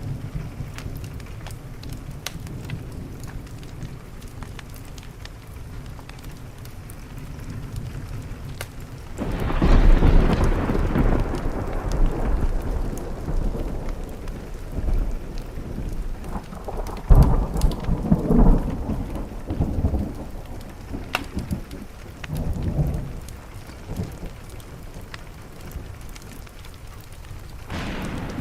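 Steady rain against a window with thunder: a long, deep rumble rolls in about nine seconds in. Several more claps and rumbles follow, the sharpest around the middle, and another begins near the end.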